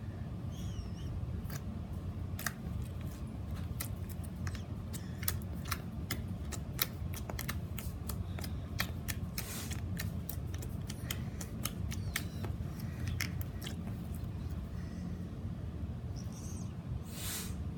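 Slime being squeezed and stretched by hand, giving sharp little pops and clicks at irregular intervals over a steady low hum.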